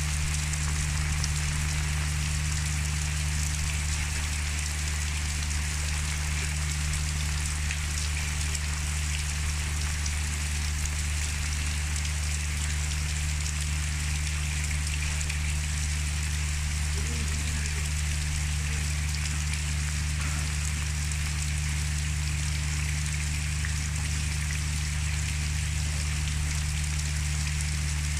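Steady rain falling on wet ground, with a constant low hum underneath.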